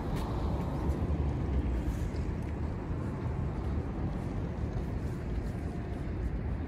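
Steady low outdoor rumble, with no distinct events standing out.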